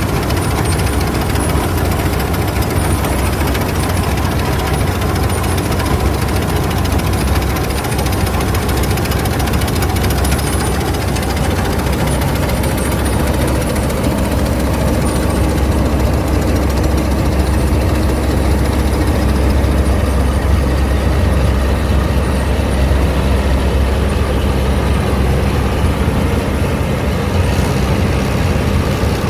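Claas Mercator 50 combine harvester's engine and threshing machinery running steadily, a deep continuous mechanical din.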